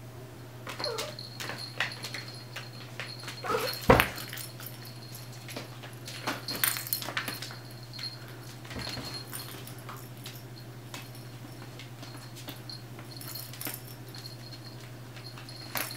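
A puppy gives a couple of short whines in the first few seconds, then a sharp knock about four seconds in, followed by scattered light clicks and rustles from the animals moving about, over a steady low hum.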